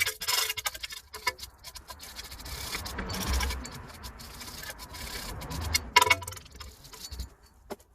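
Metal brake parts and tools being handled during a front brake-disc swap: a brief scrape, then scattered clicks and taps, a dull knock, and one sharp metallic clack about six seconds in.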